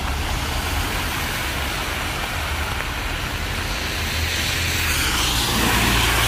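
Cars driving through a flooded street, tyres hissing and throwing up water over a steady rush of heavy rain and a low engine rumble. Near the end a car passes close, its spray swelling into a louder rush.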